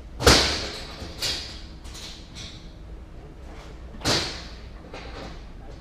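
Bangs echoing inside an empty curtain-sided truck trailer: a loud one just after the start, a smaller one about a second later, and another loud one about four seconds in, each ringing on briefly.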